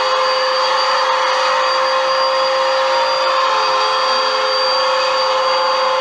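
Bagless upright vacuum cleaner running steadily: a constant motor whine with a high tone over the rush of air.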